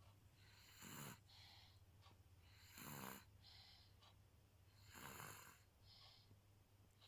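Small child snoring in sleep: three snoring breaths in, about two seconds apart, each followed by a softer breath out, over a low steady hum. The parent takes the snoring as a sign that the child is very tired.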